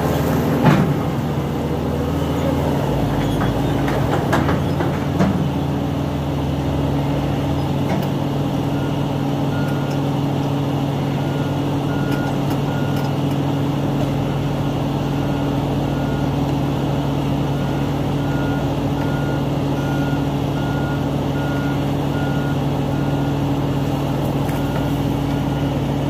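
Sugarcane harvester's engine running steadily, with a few knocks in the first few seconds. A faint repeated beeping, like a reversing alarm, runs through the middle and later part.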